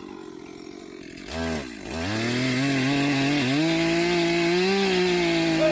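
Chainsaw engine idling, blipped once about a second and a half in, then throttled up from about two seconds in and held at high revs, cutting into a tree's wood, before the revs fall away right at the end.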